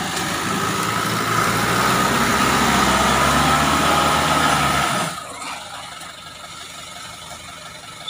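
Diesel engine of a loaded Eicher tipper truck pulling slowly across soft ground. It grows louder over the first few seconds, then drops away suddenly about five seconds in as the load on the engine comes off.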